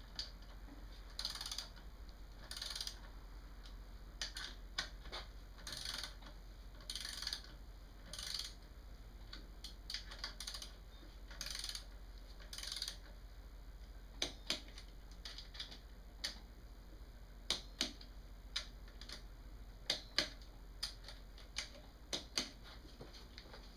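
Hand ratchet on the cam cover bolts of a motorcycle engine: short rasping ratchet strokes repeated about once a second for the first half, then a series of sharp single clicks, typical of a click-type torque wrench letting go as each bolt reaches 87 inch-pounds.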